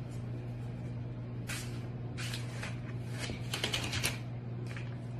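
A cat scrabbling on a tile floor and batting at scraps of paper: a run of quick, rustling scuffles from about a second and a half in to about four seconds in, loudest near the end of the run, over a steady low hum.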